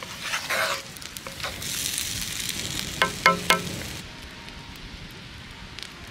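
Curry sizzling and bubbling in a cast-iron camp oven over a wood fire, with a wooden spoon stirring and scraping in the pot. About three seconds in, three short squeaks stand out, the loudest sounds here. After that it settles to a quieter, steady hiss with a few faint crackles.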